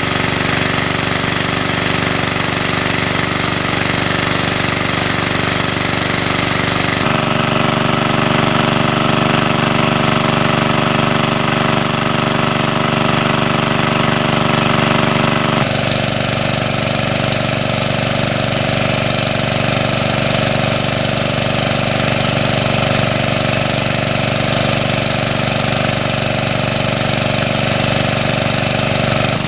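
Small engine-driven water pump running steadily at working speed, pumping water out of a pond. Its note changes abruptly twice, about a third and halfway through.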